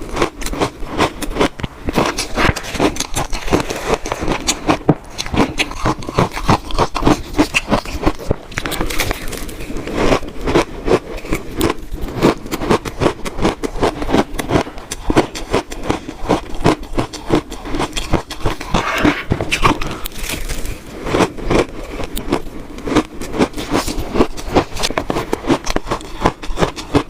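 Close-miked crunching of frozen shaved ice being bitten and chewed: a rapid, continuous run of crisp cracks and crackles.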